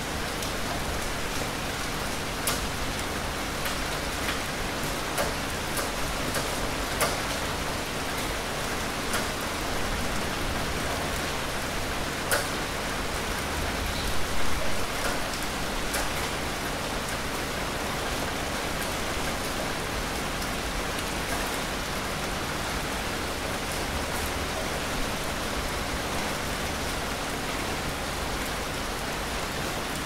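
Steady rain falling, with scattered individual drops ticking sharply above the hiss and a short flurry of louder drops about halfway through.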